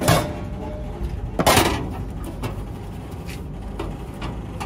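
Clunks from a retro hamburger vending machine's pickup flap and tray as the boxed microwaved burger is delivered and pulled out: a short knock at the start, a louder, longer clunk about a second and a half in, then a few light clicks.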